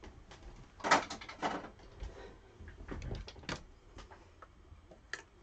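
Handling sounds of paper and crafting supplies on a desk: a few short rustles and scrapes, the loudest about a second in.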